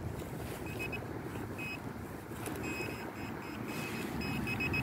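Handheld metal-detecting pinpointer beeping as it is probed through the soil of a dug hole, short high beeps that come quicker in the second half as it closes in on the buried target, over a steady low rumble.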